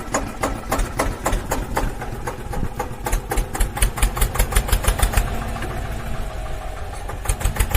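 Engine running with a steady chugging beat. It quickens and gets louder near the end.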